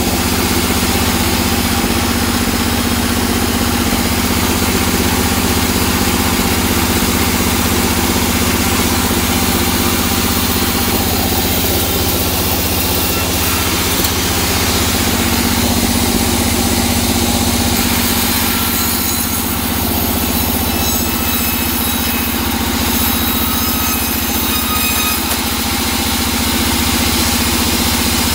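Large vertical band saw running steadily while resawing a block of teak into slabs. A faint high whine joins the cutting noise for a few seconds past the middle.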